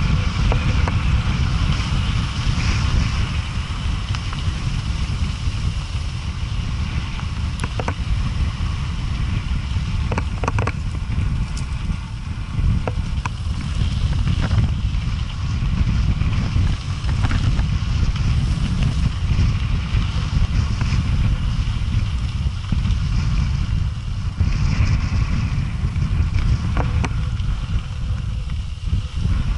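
Heavy wind rumble on the microphone of a bike-mounted camera riding down a gravel track, with the tyres crunching over the gravel and now and then a sharp rattle or knock from the bicycle.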